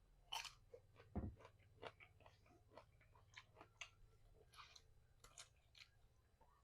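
A person chewing fried chicken close to the microphone: quiet, irregular wet clicks and crunchy crackles of the mouth working, with one low thump about a second in.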